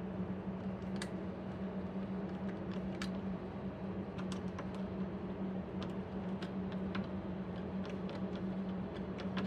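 Scattered light clicks and taps, like a vacuum line and its fittings being handled and pushed into place, over a steady low hum.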